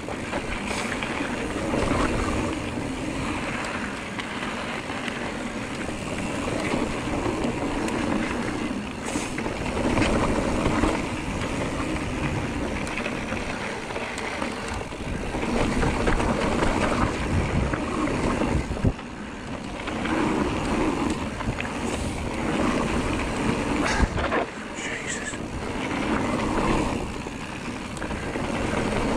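Wind buffeting the microphone over the rumble of a mountain bike's tyres running down a dirt trail. The noise is steady and rises and falls every couple of seconds, with a few short knocks.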